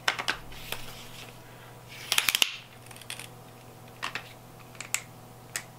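A DJI Osmo extension rod being handled and adjusted, giving off sharp clicks of its parts: a few at first, a quick run of louder clicks about two seconds in, then single clicks spread through the rest.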